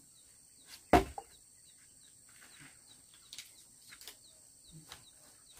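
A single sharp knock about a second in, then a few faint taps. Behind it run a faint steady high whine and a short faint chirp repeating about twice a second.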